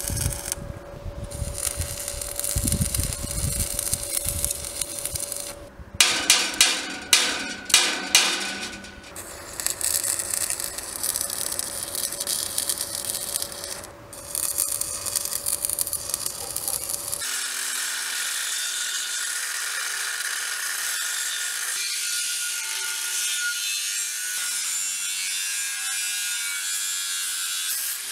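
Electric arc welding on a steel profile-pipe gate frame, crackling in uneven spells, with a run of sharp loud knocks about six to nine seconds in. About seventeen seconds in it switches abruptly to an angle grinder cutting through steel profile pipe, a steady whining grind.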